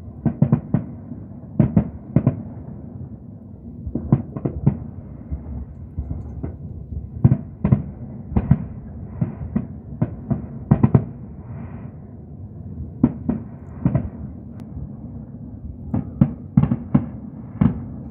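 Fireworks salute bursting: a string of sharp bangs at uneven intervals, sometimes several in quick succession, over a steady low rumble.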